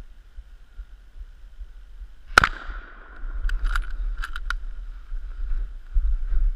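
A single rifle shot with a short echo through the woods, followed about a second later by a few quick sharp clicks.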